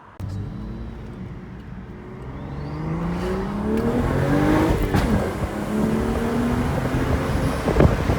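BMW 335i's N55 turbocharged inline-six, fitted with a catless downpipe, accelerating hard. The engine note climbs steadily through a gear, drops at a shift about five seconds in, then climbs again. A few sharp exhaust cracks near the end are the pop on the shift.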